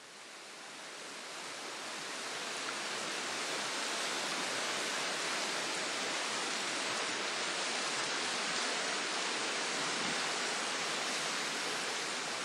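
Steady rushing of river water, fading in over the first couple of seconds and then holding constant.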